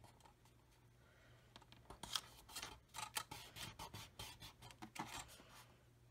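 Cardstock being handled: the paper pocket slides and rustles against the card base and the board as it is lined up and pressed into place. The soft, quick scraping and rustling starts about two seconds in.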